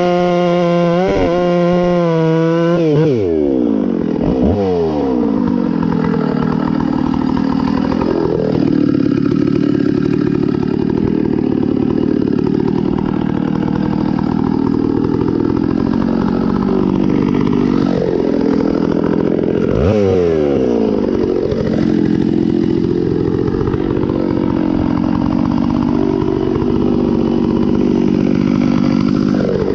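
Stihl 066 Magnum two-stroke chainsaw, freshly rebuilt top end, screaming at full throttle for about three seconds, then dropping sharply in pitch as the chain bites into the wood. It keeps cutting under load, and the revs briefly dip and pick up again a few times.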